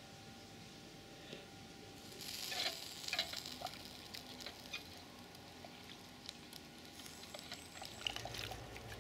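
Dishes and a fork being stirred and scrubbed in soapy water in a steel camping pot: quiet clinks of metal on metal, with a short swishing of water about two seconds in.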